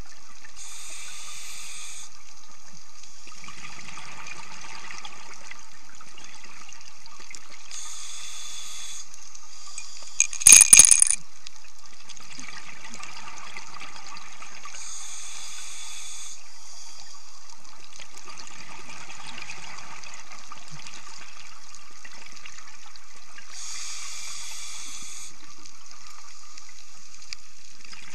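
Underwater sound of a scuba diver breathing through a regulator: a rushing hiss and a gush of bubbles that repeat about every seven to eight seconds over a steady hiss. A brief cluster of sharp knocks about ten seconds in is the loudest sound.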